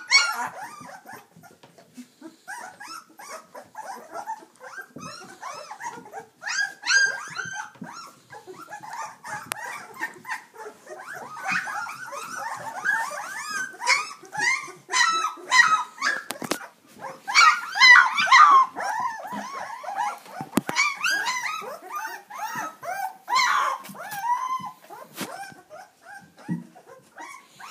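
A litter of young puppies whimpering and yelping, many short high cries overlapping one another almost without pause, with louder bursts of squealing at times.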